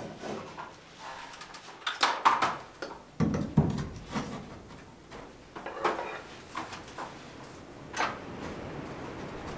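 Scattered knocks, clunks and scrapes of hand work: tools being handled and a person stepping up an aluminium stepladder, with sharper knocks about two seconds in and again near the end.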